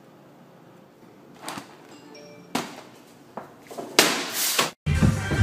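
Quiet room tone broken by a few soft clicks and rustles and a short, loud rush of noise about four seconds in, as the phone is moved about. Music cuts in near the end.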